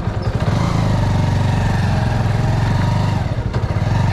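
Bajaj Avenger 220's single-cylinder engine running steadily with an even low firing pulse.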